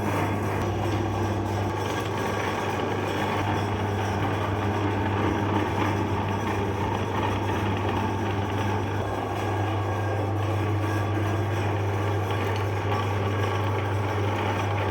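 Electric meat grinder running steadily with a constant low hum.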